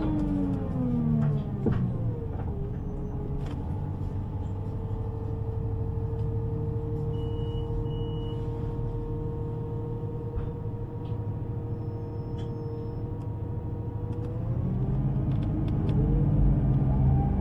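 Electric underground train's traction motors whining down in pitch as it slows, then a steady hum while it stands or coasts, with two short high beeps midway. Near the end the whine rises again as the train accelerates.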